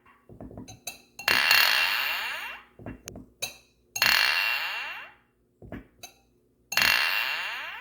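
Glasses clinking together: three sharp clinks a few seconds apart, each ringing out with a high glassy tone that fades over a second or so, and lighter small taps of glass in between.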